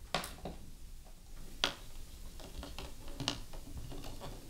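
A handful of light, sharp clicks and taps as a UMB cable plug is pushed into its port on the back of an Ultimaker Material Station and the cable is handled. The sharpest click comes about a second and a half in, with a few smaller ones around three seconds in.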